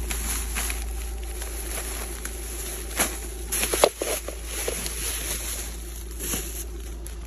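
Plastic grocery bags rustling as they are handled and set down, with scattered steps and small knocks; a louder cluster of rustles and knocks comes about three to four seconds in.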